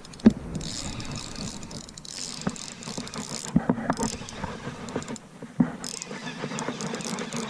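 Spinning reel being cranked to retrieve line, its gears and handle clicking, with sharp knocks from hands brushing the body-worn camera, the loudest about a quarter second in.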